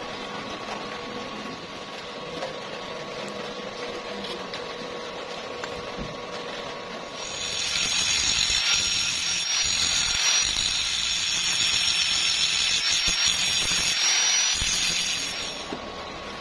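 Angle grinder with a thin abrasive disc grinding rust and mill scale off a steel plate. It starts about halfway through and runs steadily for about eight seconds as a loud hiss with a thin, high whine, then stops. Before it there is only a steadier, quieter hum.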